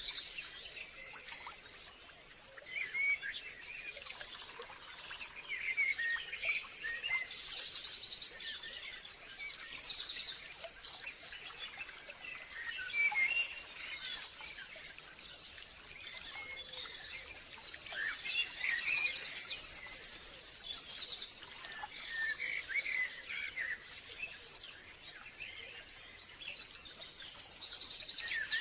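Wild songbirds singing and calling, several at once: repeated short chirps and fast high trills overlapping over a faint outdoor hiss.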